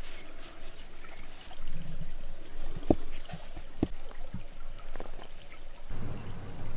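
A river trickling steadily in the background, with a few soft low knocks between about 3 and 4.5 seconds in.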